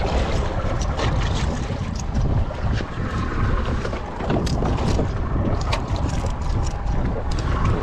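Wind rumbling on the microphone aboard a boat at sea, with scattered sharp knocks and clicks of a knife cutting up fish for chum.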